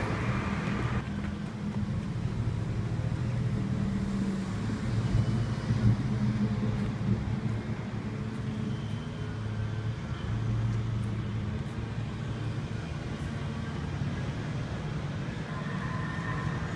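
Road traffic: car engines idling and moving slowly, a steady low hum that swells and eases.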